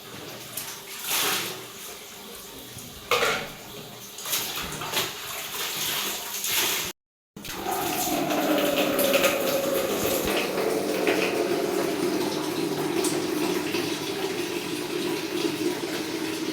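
Several knocks and clatters of things being handled, then water running steadily from a tap, with a ringing tone that falls slightly in pitch at first and then holds steady.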